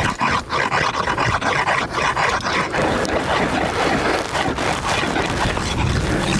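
A homemade long metal ice saw with a wooden handle cutting through thick lake ice by hand, rasping and scraping through the ice and slush in repeated push-pull strokes. The cutting is slow through the thick ice.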